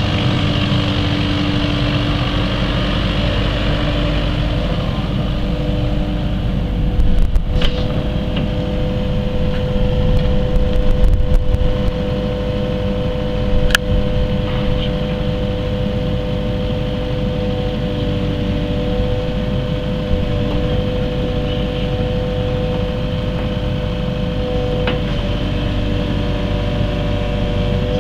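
Kubota tracked excavator's diesel engine running steadily, with a steady whine, while the boom and bucket are worked. A few louder clunks come from the moving machine, with a sharp click about halfway through.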